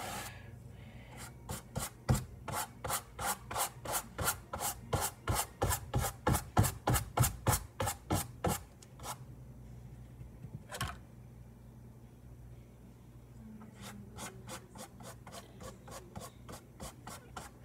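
A paintbrush scrubbing paint onto a canvas in quick back-and-forth scratchy strokes, about three a second. There is a pause partway through, then lighter, quicker strokes near the end.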